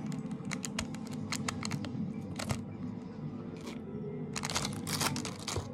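Slime being stretched, pressed and squeezed by hand, giving off a run of sharp sticky clicks and crackles, with a dense cluster of them near the end.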